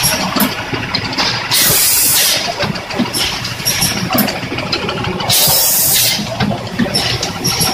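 Rotary premade-pouch filling and sealing machine running, its mechanism clicking and knocking, with a loud pneumatic hiss of released air twice, about every four seconds.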